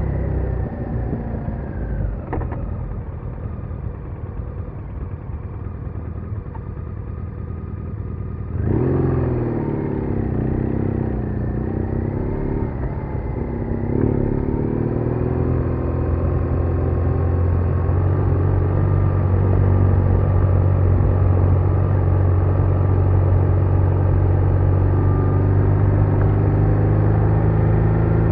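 BMW R1200R's flat-twin engine on the move: the pitch falls and the engine quietens as the bike slows, then about a third of the way in it picks up suddenly with the pitch wavering, and it settles into a louder, steady drone for the second half.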